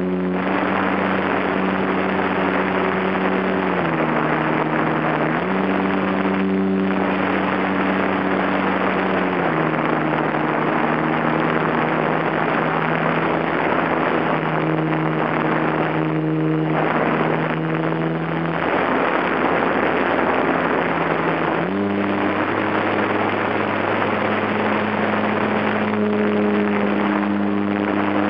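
HobbyZone Super Cub's brushed electric motor and propeller whining steadily, picked up close by the plane's onboard camera over a constant hiss. The pitch drops and climbs back several times as the throttle is eased and opened, ending on a steady, higher note.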